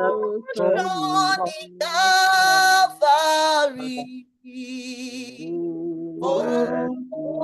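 Voices singing a Yoruba worship chorus about the blood of Jesus, with long held notes and vibrato; there is a brief pause about four seconds in.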